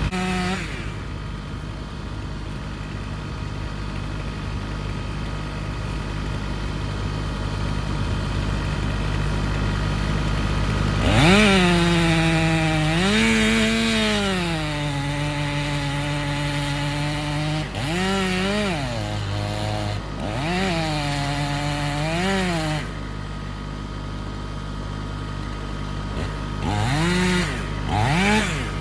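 Two-stroke chainsaw idling, then opened up to full throttle about 11 seconds in and held high for several seconds, its pitch sagging and recovering as it works. It then gives several quick throttle blips, drops back to idle, and blips twice more near the end.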